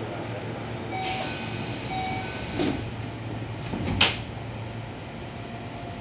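Sliding passenger doors of a Keio 7000 series train closing. A hiss carries a short chime that sounds twice about a second apart, then a sharp thud about four seconds in as the door leaves meet, over the train's steady low hum.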